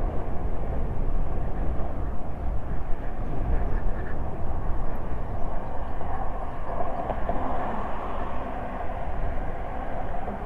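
Steady wind and road noise while riding an e-bike, with a heavy low rumble of wind buffeting the microphone.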